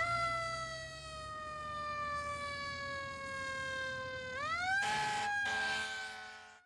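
A siren-like pitched tone, likely an intro sound effect. It climbs, slides slowly down for about four seconds, rises again with a short noisy burst, and cuts off abruptly near the end.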